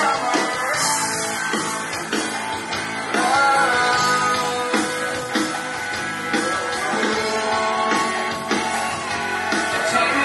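A band playing a rock song: a male voice singing into a microphone over guitar and drums.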